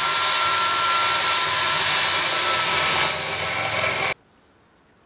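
Cordless drill boring through the rusted steel wall of a cut-down lick barrel pan, running steadily with a high whine. It eases slightly about three seconds in and stops abruptly about a second later.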